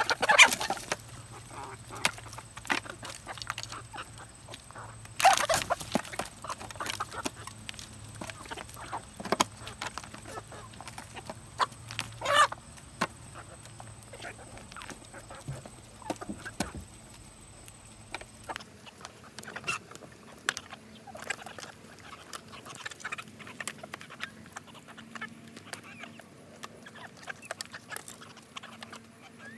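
A flock of chickens feeding from a foil tray: clucking and many quick pecking clicks, with a few louder moments near the start and about five and twelve seconds in.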